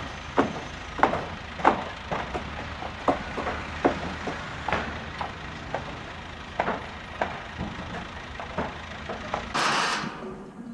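Engine running with a steady low rumble, under irregular sharp knocks and clanks about one or two a second, and a short loud hiss of air near the end.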